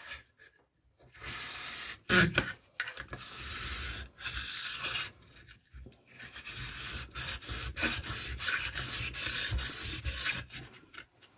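Axe blade being stroked back and forth across a wet whetstone, a steady rasping of steel on stone. It comes in two runs of quick strokes with a short pause about halfway, and a sharp knock about two seconds in.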